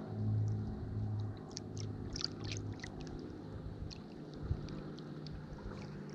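Light splashing and trickling of water around a striped bass held in the shallows to revive it, a cluster of small splashes at about one and a half to three seconds in, over a low steady motor hum that fades after about a second.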